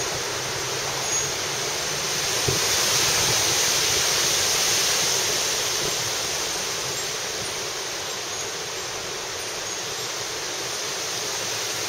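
Severe thunderstorm wind gusting, a steady rush through trees that swells about two seconds in and eases off after about six seconds.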